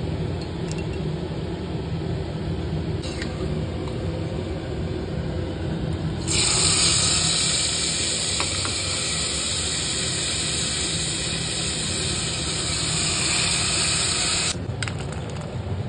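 A loud, steady hiss starts abruptly about six seconds in and cuts off about eight seconds later, over a low steady hum.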